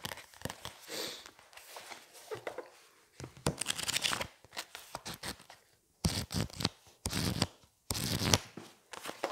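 Pages of a thick paperback textbook riffled and flipped fast by hand: bursts of paper fluttering and flapping with short pauses between, the longest and loudest coming in the second half.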